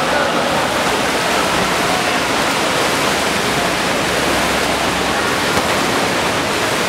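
A steady wash of splashing water as a pack of water polo players swim flat out, kicking and stroking.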